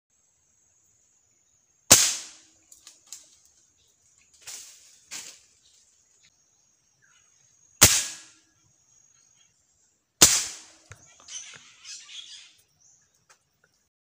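Three sharp shots from a .22 pre-charged pneumatic air rifle: about two seconds in, near eight seconds and just after ten, each a sudden crack that dies away quickly. Softer knocks and rustles follow between and after the shots.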